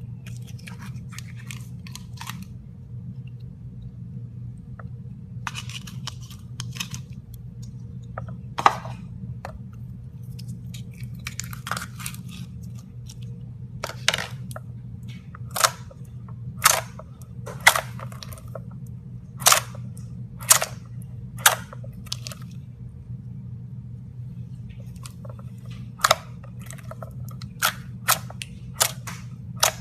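Slime being squeezed and worked, with short crackly stretches and then about a dozen sharp pops, roughly one a second, from air pockets bursting. A steady low hum lies underneath.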